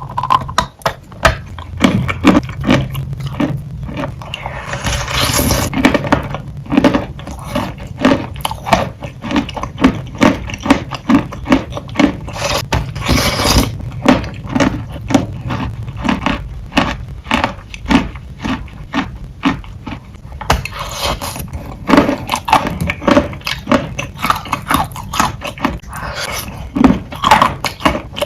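Close-miked biting and chewing of wet, soupy chalk: a dense run of sharp crunches, broken by a few longer gritty scraping stretches.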